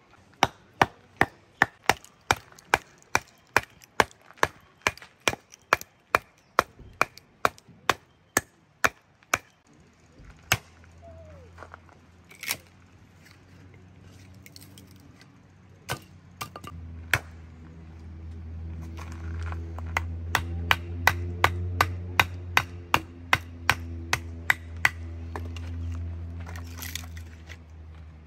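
Small hatchet chopping into a firewood log in quick, sharp blows, about two to three a second, splitting it into kindling. The blows thin out for several seconds midway and then pick up again. A steady low hum comes in about ten seconds in and grows louder.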